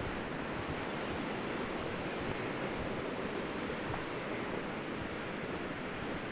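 Steady rushing noise of running floodwater, with a low rumble of wind buffeting the microphone.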